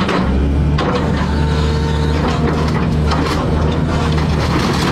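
Excavator's diesel engine running steadily, with scattered knocks and crunches over it.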